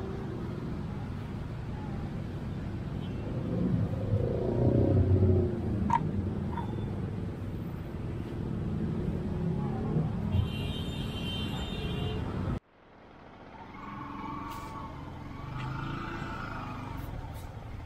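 Road traffic: a steady rumble of motor vehicles, louder for a moment about four to five seconds in, with a brief high-pitched tone about ten seconds in. The sound cuts off abruptly about two-thirds through, and quieter traffic noise picks up again.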